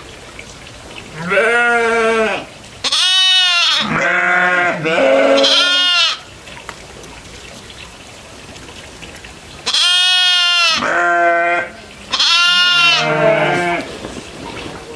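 Goats bleating: about seven calls in two bunches, four in quick succession and then three more after a pause of a few seconds. Some voices are high and some deeper, so several goats are calling.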